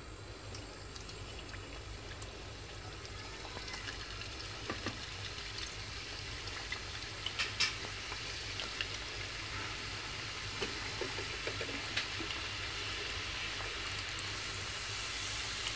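Chicken-filled rolls deep-frying in hot oil in a kadhai: a steady sizzle that grows louder as more rolls go into the oil, with a few sharp crackles.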